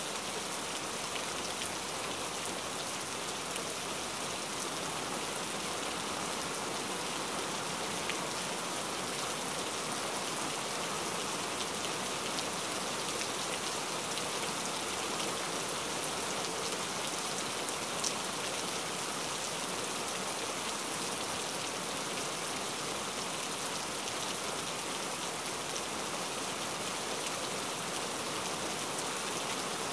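Steady rainfall: an even hiss of rain with occasional sharp drop ticks, one standing out about eighteen seconds in.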